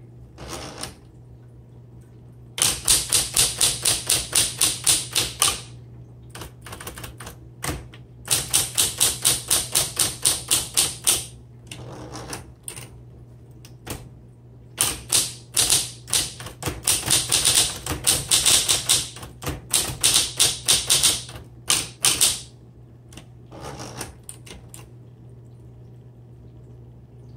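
Smith Corona Electra 110 electric typewriter being typed on: three long runs of fast, sharp key strikes with scattered single strokes and pauses between them, over a steady low hum.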